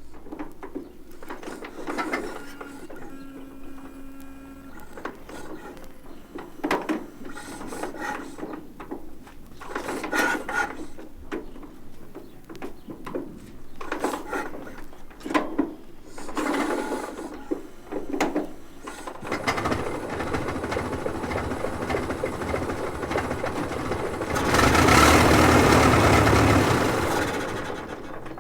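Ford Model T engine: irregular knocks and chuffs, with a brief steady tone about three seconds in, then from about 19 seconds a continuous running sound that swells loudest near the end and then eases off.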